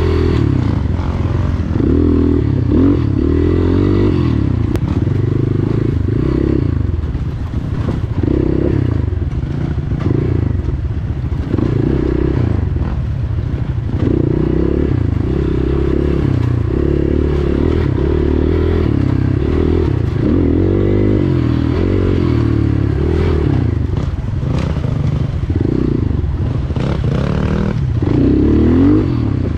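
Single-cylinder four-stroke engine of a GPX FSE250E dual-sport motorcycle being ridden, its pitch rising and falling over and over as the throttle opens and closes, with occasional rattles and knocks from the bike. It revs up hardest near the end.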